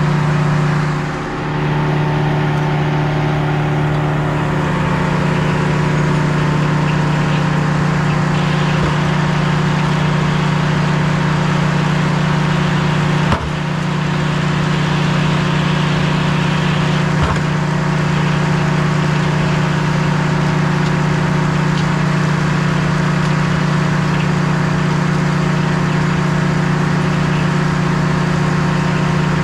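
Sawmill engine running steadily at a constant speed, with two sharp clicks a few seconds apart near the middle.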